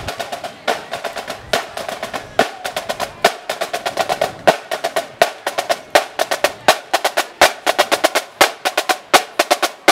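Marching snare drum line playing a fast cadence: sharp, ringing strokes in quick rhythmic groups.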